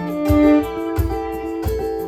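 Instrumental passage of a band song: guitars playing over a steady percussion beat, with no singing.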